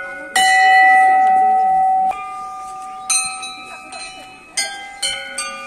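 Temple bells struck about six times, each stroke a sudden clang that rings on and overlaps the next. The first stroke, about half a second in, is the loudest and rings the longest, and three come in quick succession near the end.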